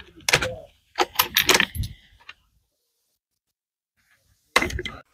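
Sharp metallic clicks and clinks of a scoped rifle and loose cartridges being handled at a shooting bench, in quick clusters during the first two seconds, then a pause, then another short burst of clinks near the end.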